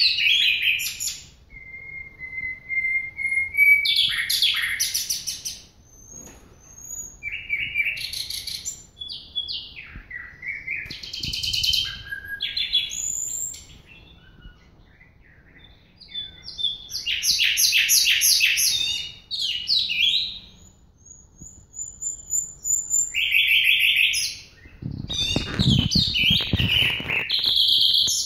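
Oriental magpie-robin singing a varied song of clear whistles and rapid trilled phrases, with short pauses between phrases. Handling noise rumbles briefly near the end.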